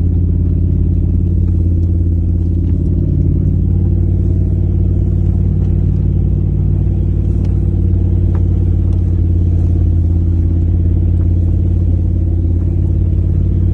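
Toyota 3UZ-FE V8 engine running steadily under load while driving, heard from inside the cab as an even low drone. A few faint ticks sound over it.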